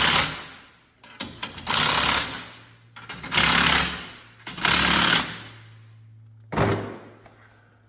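Cordless impact wrench hammering in short bursts of under a second, about every second and a half, with a brief final burst near the end: nuts being run down on the rear axle's leaf-spring U-bolts.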